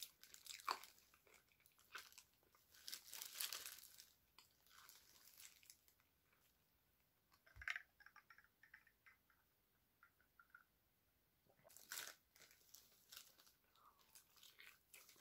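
Crunching bites into crispy fried chicken and chewing, in short bursts with quiet gaps, together with the crinkle of thin plastic food-handling gloves.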